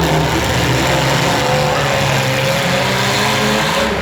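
Engines of several compact demolition derby cars running and revving at once, over a steady noisy din.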